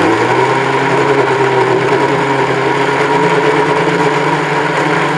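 Electric mixer grinder (mixie) running steadily at full speed, its motor spinning the blades in a steel jar of chopped bananas and sugar.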